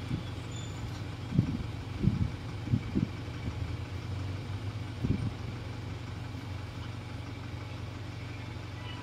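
A steady low mechanical hum, like an engine running at idle, with a few soft low knocks between about one and five seconds in.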